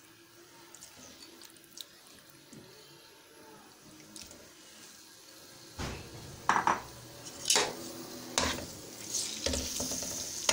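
Raw chicken strips going into oil in a nonstick wok, with a few sharp knocks and clatters of a utensil against the pan from about halfway. The oil starts to sizzle near the end as the pan heats.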